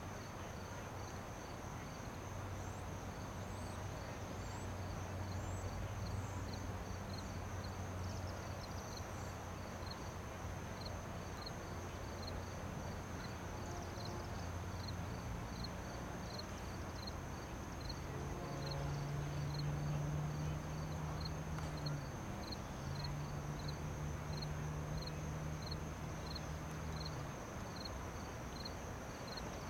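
Low, steady drone of distant approaching GE C40-8W diesel freight locomotives, stepping up in pitch about two-thirds of the way through. Over it, a steady high insect buzz and regular insect chirps a little more than once a second.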